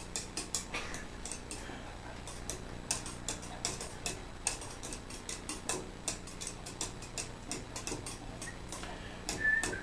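Cat lapping milk from a plastic bowl: a quick, even run of small wet clicks, about four laps a second.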